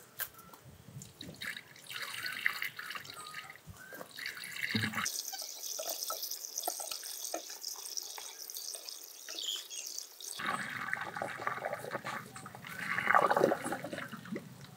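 Vinegar solution poured from a plastic gallon jug through a funnel into a car radiator, splashing and trickling as the radiator is filled for a coolant flush. The pour is loudest near the end.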